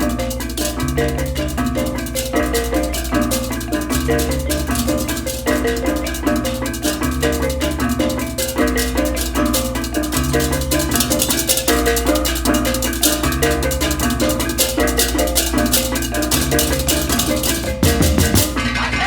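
Balinese gamelan baleganjur ensemble playing: rapid, dense ceng-ceng cymbal clashing and kendang drumming over a reyong gong-chime melody and sustained low gong tones. Near the end the ensemble breaks into a louder run of accented strokes.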